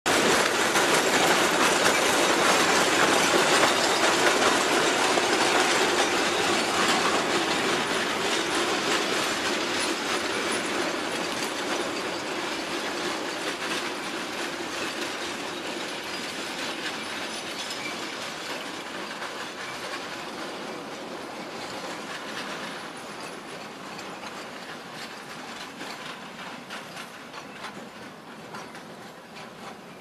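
Narrow-gauge steam-hauled coal train rolling past, its wagon wheels clicking over the rail joints. The sound is loudest at first and fades steadily as the train draws away.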